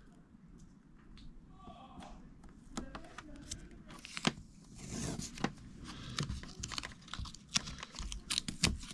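Masking tape being peeled off its roll and torn, crackling and tearing in short spurts, mostly from about four seconds in, with small clicks and rustles as it is handled and pressed onto the car body.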